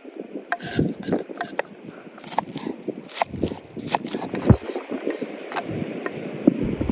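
Irregular knocking, clinking and scraping, many short hits, a few with a brief ring.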